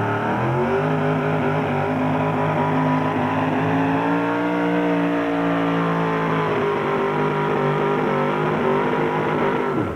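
Super modified 4x4 pulling truck's engine running at high revs under full load as the Chevy drags the pulling sled. The pitch sweeps up in the first second, holds high with small swings, then falls steeply near the end.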